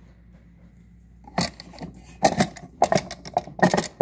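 Drawers of a small wooden jewelry box being pushed shut by hand: a run of sharp wooden knocks and rattles starting about a second and a half in.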